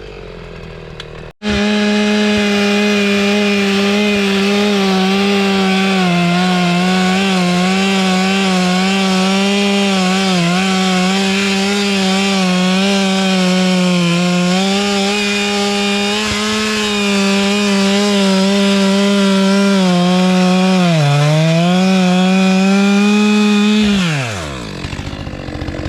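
Chainsaw running at a steady high pitch, held near full throttle as it cuts through a storm-downed log. It dips briefly near the end, then the throttle is released and the engine winds down.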